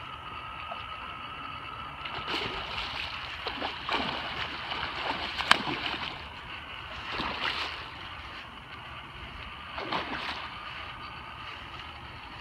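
A hooked channel catfish thrashing and splashing at the water's surface in several bursts, with one sharp crack midway, over a steady hiss.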